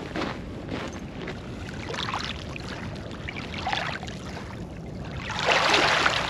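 Small waves lapping and washing over pebbles at the shoreline, with one louder wash near the end.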